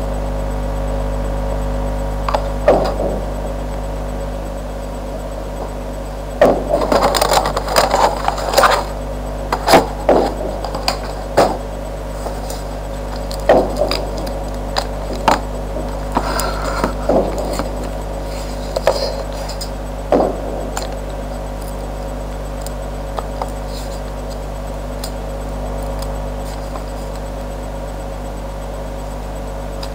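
Handling noise: irregular knocks, clicks and rubbing as hands handle headphones right at the webcam's microphone, over a steady low hum. The knocks come thickest in the first two-thirds and then die away, leaving the hum.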